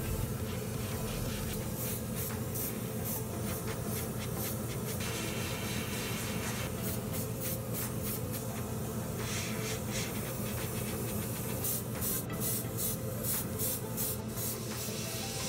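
Airbrush spraying in bursts of hiss, over a steady low hum.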